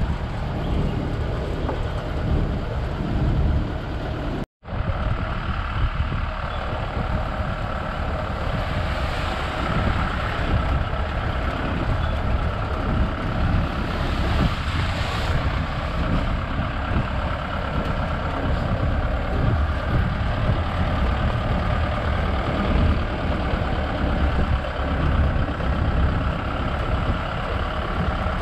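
Safari vehicle's engine running as it drives along a forest track, a steady low rumble with road noise. The sound drops out for an instant about four and a half seconds in, then carries on unchanged.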